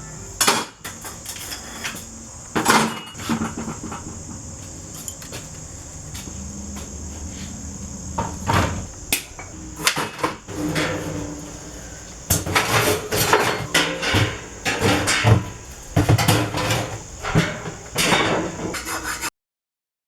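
Irregular metallic clanks, knocks and clatter, the kind made by taking an air conditioner apart by hand, growing busier in the second half and cutting off suddenly near the end.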